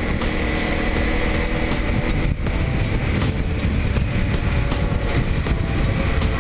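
Honda dual-sport motorcycle's single-cylinder engine running steadily at riding speed, with wind rushing over the microphone and a faint regular ticking about three times a second.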